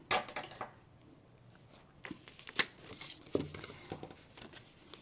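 Sticky Strip, a red-lined double-sided adhesive tape, pulled off its roll with a crackling rip right at the start. More tearing and crinkling follows as the tape and cardstock are handled, with one sharp snap about two and a half seconds in.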